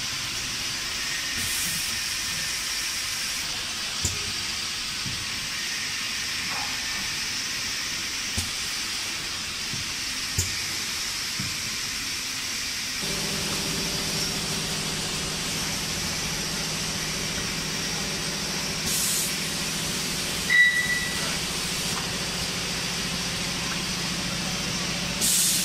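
Automatic coffee capsule filling and sealing machine running, with a steady hiss from its pneumatic air system and occasional sharp clicks. About halfway a low steady hum sets in, and a loud clack comes near the end.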